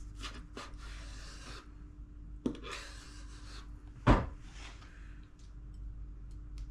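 A kitchen knife sawing and scraping through a skin-on turbot fillet, catching on the knobbly skin, against a cutting board. Two knocks of the blade on the board, a small one about two and a half seconds in and a sharper, louder one about four seconds in.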